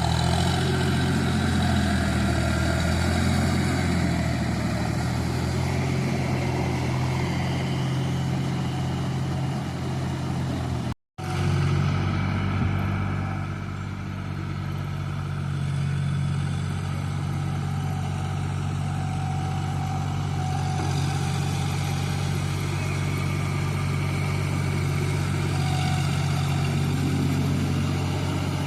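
Diesel engine of a farm tractor running steadily under load while ploughing a field, with a deep, even hum; the sound drops out for an instant about eleven seconds in and the same engine carries on.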